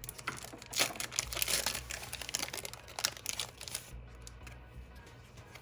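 Foil booster-pack wrapper crinkling as the opened pack is handled and the cards are slid out, with dense crackling for about four seconds that then dies down.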